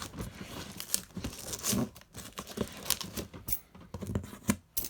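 A key scraping through the packing tape of a cardboard box, tearing tape and crinkling cardboard in short, irregular strokes.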